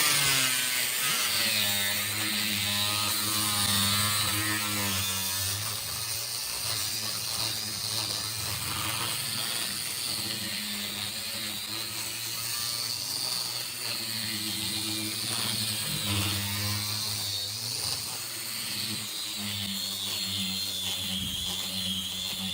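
A woodworking power tool's motor running steadily with a high whine, its low hum shifting a little in pitch now and then as if under changing load.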